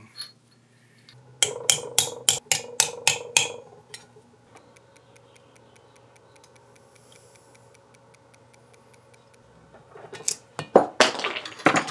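A quick run of about eight sharp metal-on-metal taps, each ringing briefly, as hand tools work on the cast-iron milling machine head. Near the end comes a cluster of clicks and scraping as wire hooks pry at the nylon worm gear seated in the housing.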